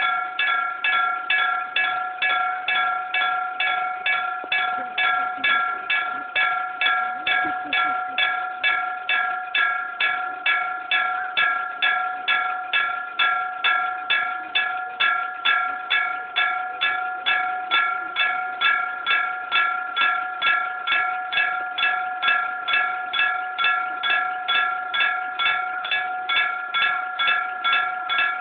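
Old-style electric striker bell of a Japanese railway level-crossing alarm ringing "kan, kan, kan" at an even pace, about two and a half strikes a second, each stroke ringing on into the next. This is the crossing's warning that a train is coming.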